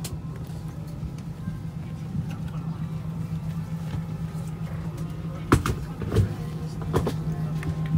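Steady low hum inside an Airbus A320 passenger cabin, with a few sharp knocks from handling near the end.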